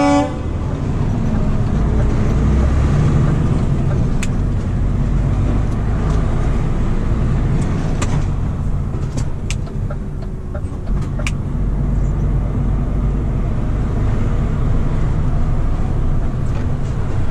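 Truck running: a steady low engine and road rumble, with a few faint clicks scattered through it.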